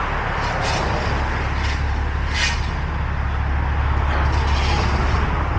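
Heavy diesel engine idling with a steady low drone, with a few short hissing noises in the first couple of seconds.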